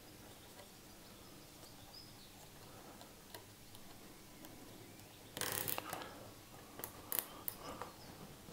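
Plastic cable tie being pulled tight: a short ratcheting rasp about five seconds in, then a few quick clicks. The sound is faint.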